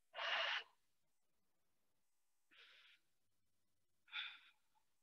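A person breathing audibly during a yoga pose: a breathy, sigh-like breath about half a second long right at the start, a faint breath about two and a half seconds in, and another short breath near the end.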